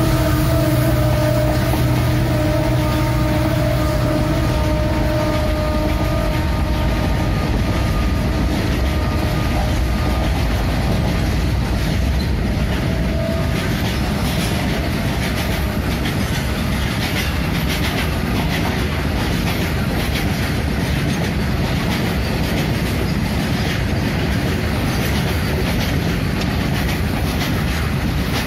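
WDG-class diesel freight locomotives passing with a steady engine hum, which fades after about five seconds into the rumble of wagons rolling by, their wheels clicking over the rail joints.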